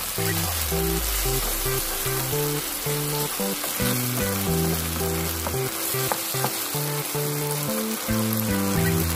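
Octopus adobo sizzling in a pan of sauce as it is stirred, with a few faint scrapes and background music underneath.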